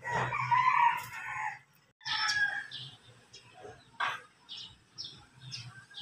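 A rooster crows once, a long call lasting about a second and a half, and a shorter loud call follows about two seconds in. After that, small birds give a string of short, high chirps.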